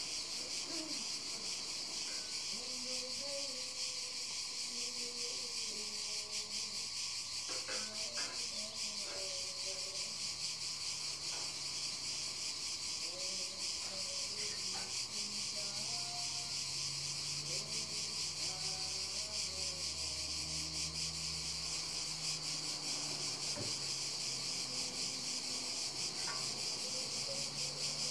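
A steady chorus of crickets or similar insects chirring in the grass, high-pitched and unbroken.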